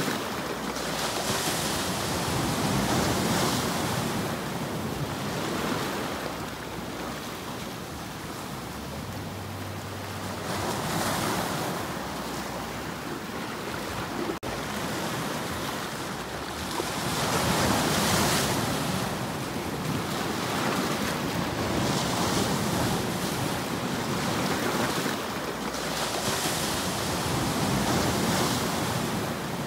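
Sea surf breaking and washing over shoreline rocks, the rush of water swelling and easing every several seconds.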